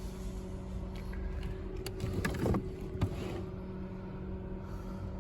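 A steady low machine hum with two even tones under a constant rumble, and a few short clicks and handling knocks about two to three seconds in.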